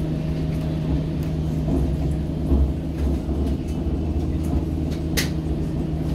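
Hamburg U-Bahn DT5 train running between stations, heard from inside the car: a steady low rumble with a constant hum, and one short sharp click about five seconds in.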